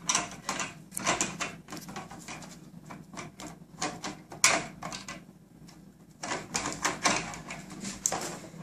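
Irregular plastic clicks, taps and rustling as a Ubiquiti Rocket M365 radio is handled and fitted onto the mount of an omni antenna, with one sharper click about halfway through.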